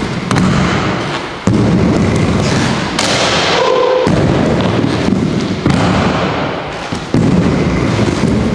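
Aggressive inline skate wheels rolling hard across a wooden mini ramp, with sudden loud knocks about a second and a half in, near six seconds and again past seven as the skates hit the ramp and coping on drops and stalls. A brief steady tone sounds about three and a half seconds in.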